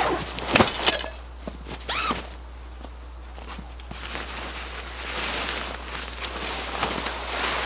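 A long fabric tent bag dropped onto grass with a thump about half a second in, then nylon fabric and the bag rustling and scraping as it is opened and the tent pulled out, with a zipper among the sounds.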